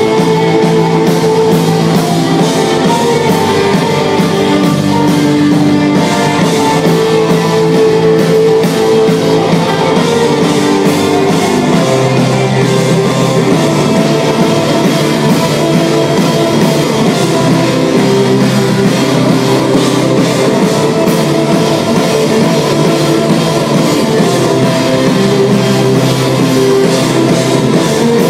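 Live heavy rock band playing loudly: electric guitars and a drum kit, heard from the crowd. The guitars hold chords, and the low note drops to a new chord about twelve seconds in.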